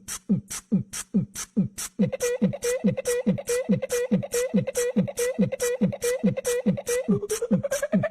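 Music: a steady beat of low, pitch-dropping kick thuds alternating with hissy hi-hat-like hits, about 2.7 a second. About two seconds in a held tone joins it, rising in pitch near the end.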